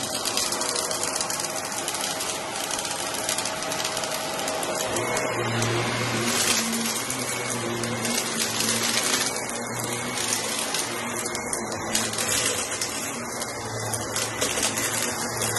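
Corded stick vacuum running and being pushed back and forth over thick shag rugs, a steady rushing of suction air with a motor hum that swells and fades as the head moves, and crackling of debris being sucked up from the pile.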